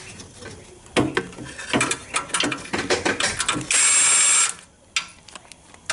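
Cordless electric ratchet backing out an inverter hold-down bolt: a run of sharp ratchet clicks, then a brief steady motor whir under a second long, about four seconds in, as it spins the bolt loose.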